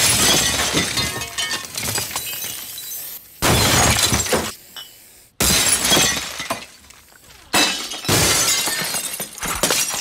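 Glass smashing: four separate loud crashes, each dying away before the next, as in a place being trashed.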